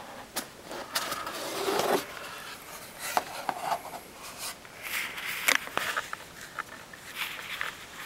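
A cardboard box being opened by hand: a loud scrape of the flaps and lid about a second in, then scattered clicks and rustles as the plastic-wrapped power supply inside is handled.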